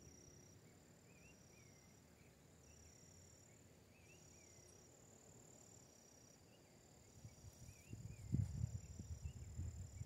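Insects chirping in an even rhythm, one high chirp of about half a second roughly every second, over a quiet open-air background. From about seven seconds in, low rumbling buffets of wind or handling noise hit the microphone.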